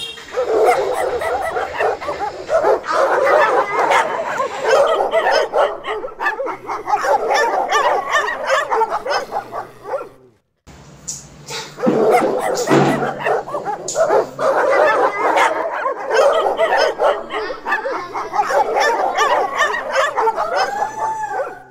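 Dogs barking on and on, many calls overlapping, with a short break about ten seconds in.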